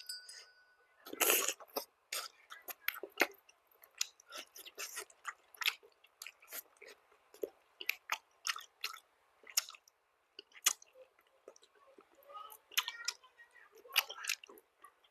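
Close-miked chewing of cow tail meat: a steady run of short, irregular wet mouth clicks and smacks, with a louder, longer bite about a second in.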